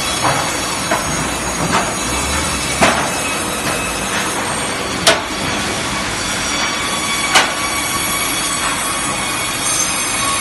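Semi-automatic vertical bandsaw running, a steady loud whine with several high steady tones, broken by a few sharp knocks.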